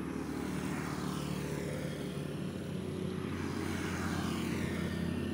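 A steady engine drone, slowly growing louder as it comes nearer.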